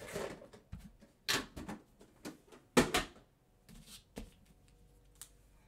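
Clear rigid plastic tin insert and booster packs being handled: a few short clattering knocks and rustles, the loudest a sharp clack about three seconds in, then a quiet last second or so.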